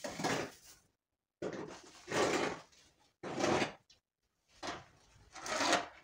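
Handfuls of dry chopped straw torn out of a tightly packed, machine-pressed sack and dropped onto a pile, rustling and crackling in four separate bursts.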